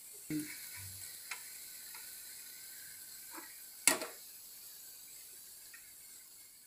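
Steel slotted skimmer clicking and scraping against the frying pan and steel tray as fried sweet corn kernels are scooped out and tipped onto paper towel: a handful of scattered clicks, the loudest near the middle, over a faint steady hiss of hot oil sizzling.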